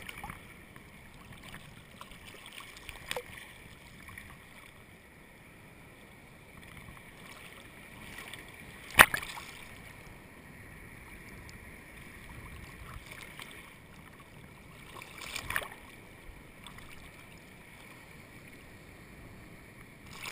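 Seawater lapping and sloshing against a camera held at the water surface, with three sharp splashes, the loudest about nine seconds in.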